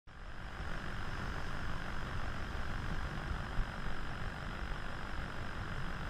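Surf breaking on a lava-rock shore: a steady low rumble and wash of waves, with a faint steady high tone beneath it.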